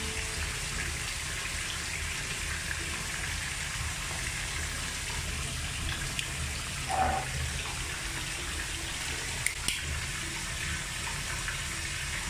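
Bath tap running steadily, filling the tub, with two sharp clicks about three-quarters of the way through.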